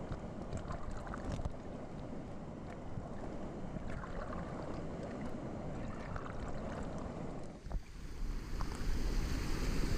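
Pool water sloshing and splashing right at the microphone of a camera held at the waterline, washing over it at times. About eight seconds in it grows louder, as people splash through the water.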